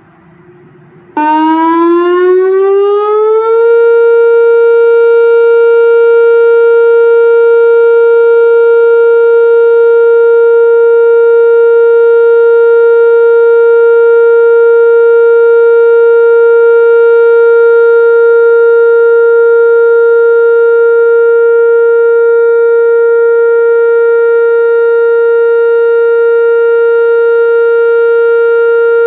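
Whelen WPS-2720 electronic outdoor warning siren sounding the alert tone of its weekly test. It starts suddenly about a second in, rises in pitch for about two seconds, then holds one steady, very loud tone.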